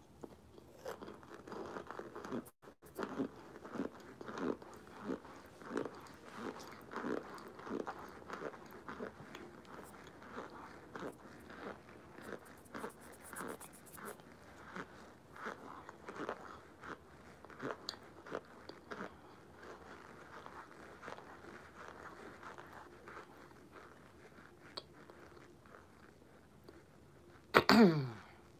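A person biting and chewing crunchy chunks of a chalky white powdery block, with sharp crunches about twice a second that thin out toward the end. A short vocal sound comes just before the end.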